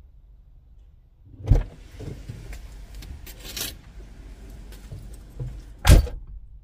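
A car door opens with a clunk, letting in outside noise and rustling with small clicks, and is shut again with a loud thud near the end.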